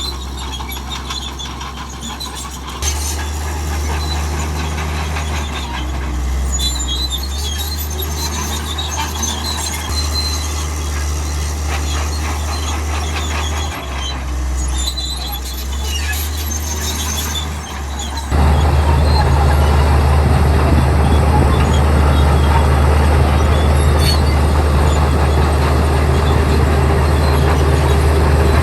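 Komatsu D65E crawler bulldozer working: a low diesel drone that rises and falls with load, under squeaking and clinking from the steel tracks. About two-thirds of the way through, the engine sound jumps suddenly louder and holds steady.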